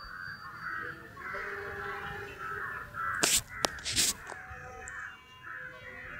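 A flock of birds calling over and over, a call every half second or so. A little past the middle come two loud bursts of rushing noise with a sharp click between them.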